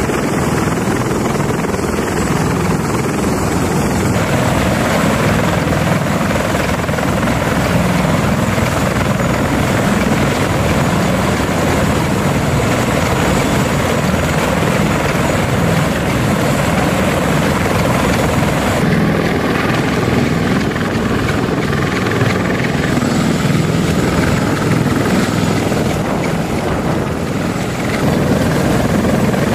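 CH-53E Super Stallion heavy helicopter running on the ground with its rotors turning: a steady, loud rumble of rotor and turbine engines with a faint high whine over it.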